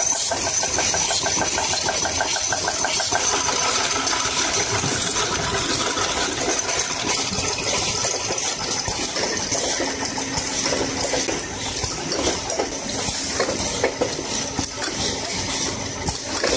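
Automatic injection-vial cartoning machine running: a steady mechanical clatter from its conveyors and carton-folding mechanisms, with a fast even ticking in the first few seconds.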